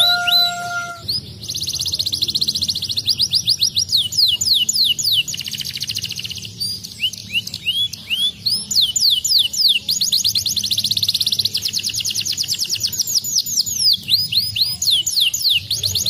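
Domestic canary singing a long, continuous song of fast trills: rapid rolls of repeated notes broken by phrases of slower, separate notes that each slide down in pitch.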